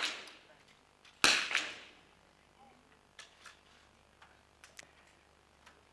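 .22 rimfire smallbore target rifle shots in a reverberant hall: a sharp crack about a second in with a ringing echo tail, the fading echo of another shot at the start, then several faint clicks.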